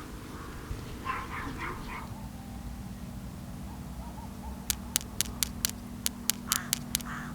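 A few short bird calls in a quick run about a second in, over a steady low hum; near the end, about ten sharp clicks in quick succession over two seconds.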